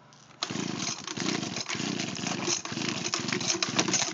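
Echo blower's two-stroke engine catching on a cold pull-start and running unevenly for a few seconds, then cutting out suddenly; the gas tank is bone dry.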